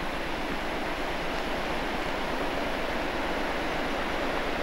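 Steady rushing of a mountain waterfall: an even, unbroken noise with no single events in it.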